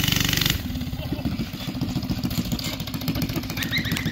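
Mini bike's small single-cylinder engine running, loud and revved for the first half second, then pulling along at a steadier speed.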